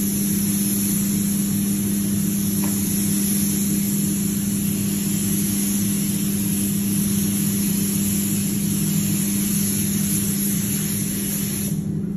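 Steady drone and hiss in a paint spray booth: the booth's ventilation fans running while a gravity-feed spray gun sprays paint from a compressed-air hose.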